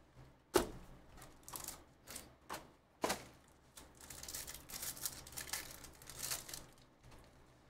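Handling of a cardboard hobby box with two sharp clicks, then a foil Bowman Chrome card pack crinkling as it is torn open.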